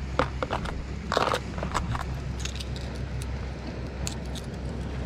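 Irregular sharp clicks and crackles of hands handling fishing tackle, a snap on the line, loudest in the first second and a half, over a steady low rumble.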